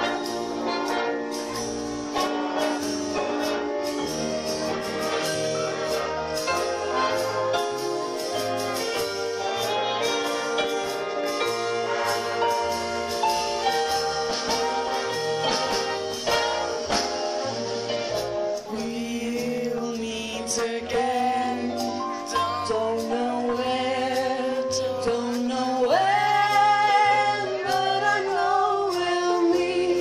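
Live big band playing 1940s-style dance music with brass. About two-thirds of the way in, a voice starts singing over the band.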